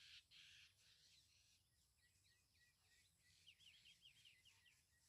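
Near silence with faint bird calls: a quick run of short, high chirping notes through the middle.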